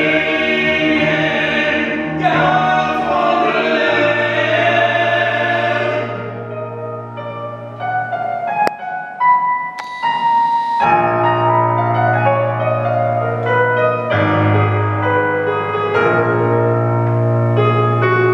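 Men's and a woman's voices singing together in harmony over keyboard accompaniment. About six seconds in the singing fades out. After a quieter gap with a sharp click, sustained keyboard chords over a steady low note carry on without voices.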